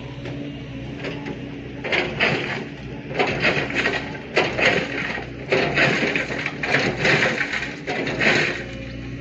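Heavy machinery's diesel engine running steadily. From about two seconds in to near the end, a long series of loud, irregular clattering and grinding crashes, like boulders being loaded and tumbling against metal.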